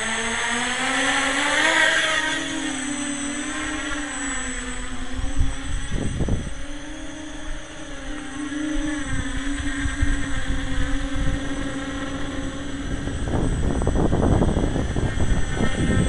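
RC tricopter's three electric motors and propellers buzzing steadily as it lifts off and hovers low over the sand, the pitch rising at the start and then wavering as the throttle is worked. Low rumbling gusts of wind on the microphone about six seconds in and heavier toward the end.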